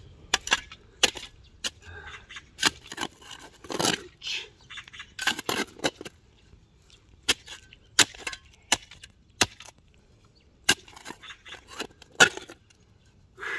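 Steel shovel blade digging into stony soil, with irregular sharp clinks and scrapes as it strikes stones and scoops dirt.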